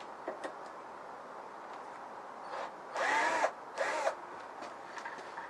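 Cordless drill backing screws out of the wooden cabinet in two short trigger pulls, about three and four seconds in, the motor whine rising and falling with each pull.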